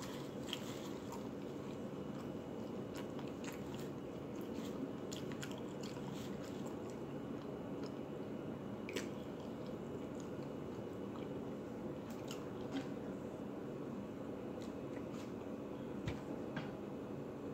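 A person chewing food close to the microphone: faint, scattered wet mouth clicks and smacks over a steady background hiss.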